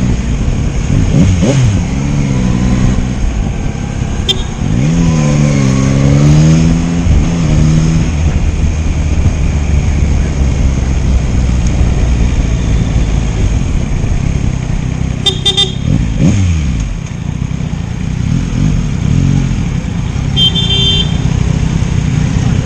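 Yamaha MT-09's 847 cc inline-three engine under the rider, revving up and down with the throttle at city speeds, its pitch rising and falling several times. A vehicle horn beeps briefly twice, about two-thirds of the way in and near the end.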